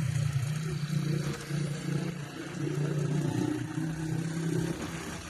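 A vehicle engine running at a steady speed, its low hum wavering a little in strength.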